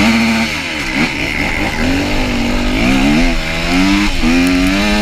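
Yamaha YZ250F dirt bike's four-stroke single-cylinder engine running under throttle, the revs rising and falling several times as it is ridden.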